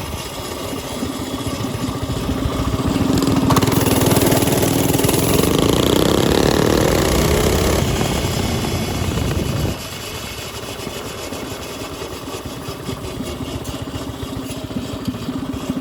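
Mini bike's small engine running. It revs up with a rising pitch through the middle, then drops back abruptly just before ten seconds in and keeps running more quietly.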